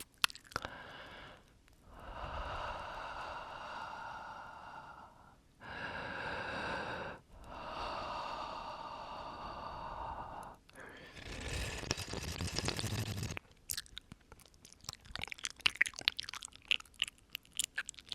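Close-up breathing into the microphone: four long, slow breaths one after another, each a few seconds long. They are followed, about three-quarters of the way through, by a rapid run of wet mouth clicks and lip smacks.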